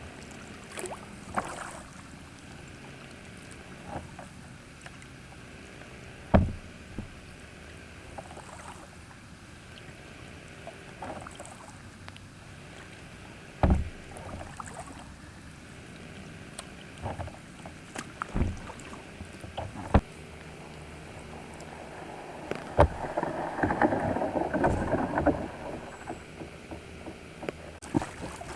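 Water sounds of a kayak out on the water: a steady low wash, with occasional sharp knocks against the boat and a louder stretch of splashing and dripping about two-thirds of the way through.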